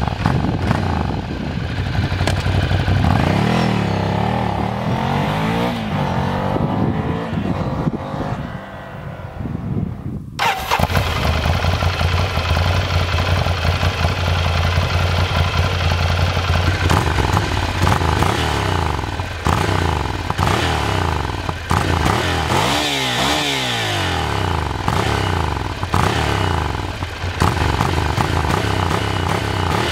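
Ducati Scrambler 800's air-cooled L-twin through Termignoni twin silencers. At first it pulls away, the pitch rising and falling through the gears as it fades; then, about ten seconds in, a sudden switch to the engine idling close by, with a few short throttle blips later on.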